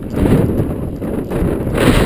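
Strong wind gusts buffeting the camera microphone during a mountain bike ride, rising sharply just after the start and again near the end.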